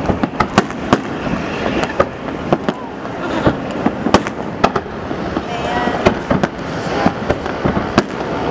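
Aerial fireworks shells bursting in rapid, irregular bangs, several a second, over a steady rumble of continuing detonations.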